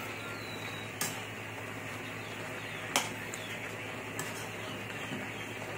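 Metal spoon stirring vegetables in an aluminium wok, with sharp clinks against the pan about one, three and four seconds in, the one near three seconds the loudest. A steady hiss of cooking lies under it.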